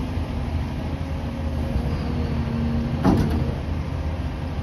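Scrap-yard excavator's diesel engine running steadily under load, with a faint hydraulic whine, as its grapple jaw works the scrap tractors off the trailer. A single sharp clank rings out about three seconds in.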